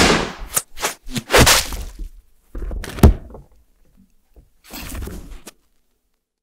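Thuds and scuffling of a person collapsing onto a stage floor: several knocks and rustling scuffs, with one loud thump about three seconds in. The sound cuts off abruptly about five and a half seconds in.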